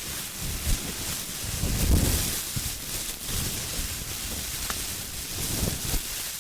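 Plastic bag crinkling and rustling, handled close to the microphone, with an uneven, crackly noise that stops abruptly.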